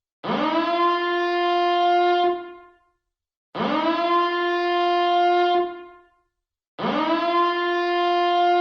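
Nuclear power plant reactor alarm siren sounding in repeated blasts: three blasts of about two seconds each, every one sweeping quickly up in pitch and then holding a steady horn-like tone before dying away, with brief silent gaps between.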